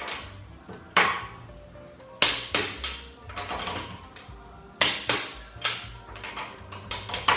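Background music with a beat: sharp drum hits, often in quick pairs, over a low bass line.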